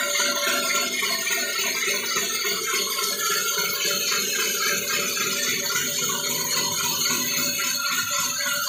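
Large vertical band saw running and ripping a thick wooden plank: a steady high whine over a continuous rough cutting noise.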